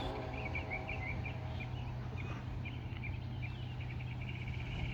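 Small birds chirping repeatedly over a steady low drone.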